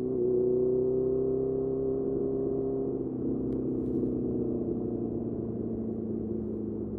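Honda CBR650R's inline-four engine running through a Mivv MK3 carbon aftermarket exhaust. The note is steady, then slowly falls in pitch and level as the bike eases off.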